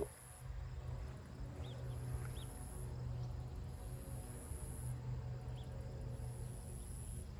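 Insects trilling at a very high pitch in spells of a second or two, with a few short bird chirps and a steady low rumble underneath.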